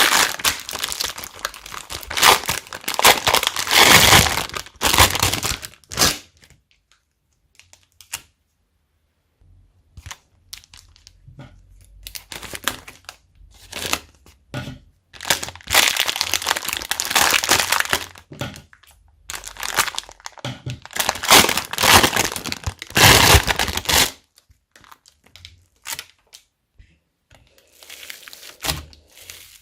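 Slime being squished, stretched and folded by hand, in waves of loud crackling and popping as trapped air breaks out. There is a pause of a couple of seconds about a quarter of the way in.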